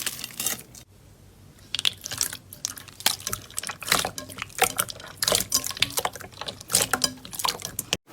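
Slime being squished, making quick, irregular wet clicks and pops, with a quieter lull about a second in; the sound cuts off abruptly just before the end.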